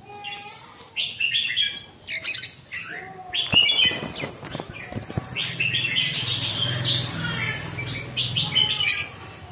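Red-whiskered bulbul of the Hóc Môn song type, calling close by in repeated bursts of quick, high chirps and warbles. A few sharp knocks come around the middle.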